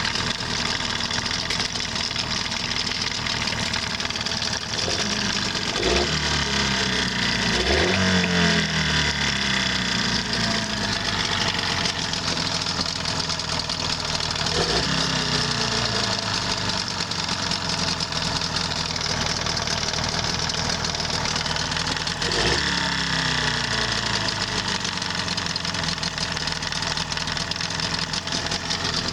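Tohatsu 18 hp outboard motor running with a persistent knock whose cause is unknown. It is blipped up a few times, pitch falling back to idle after each, with two rev-ups close together about a quarter of the way in and single ones in the middle and later on.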